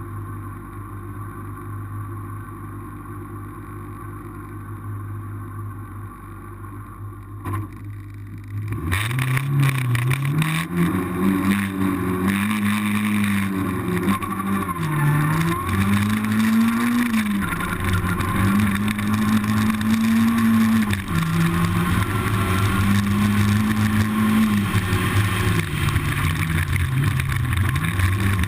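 Rally car engine revving hard, its pitch climbing about nine seconds in, then held high with repeated sharp dips at gear changes and lifts. Before that there is only a low steady hum.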